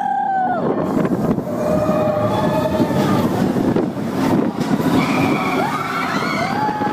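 Expedition Everest roller coaster train running fast along its track with a steady rumble and rush of air, and riders' long drawn-out screams over it: one ending just after the start, another around two seconds in, and another starting near the end.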